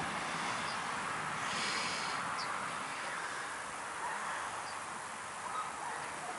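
Steady outdoor background noise, an even hiss, with a few faint brief high chirps.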